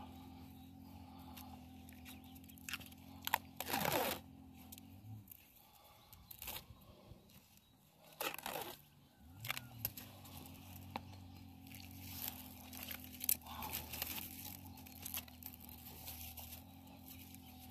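Hands at grafting work on a persimmon tree: intermittent crunching, tearing and clicking handling sounds, louder in short spells a few seconds apart, over a steady low hum.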